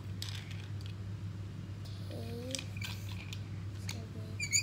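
A small plastic toy handled on a carpet, giving light scattered clicks over a steady low hum. A short voice sound about two seconds in, and a brief high squeak near the end that is the loudest sound.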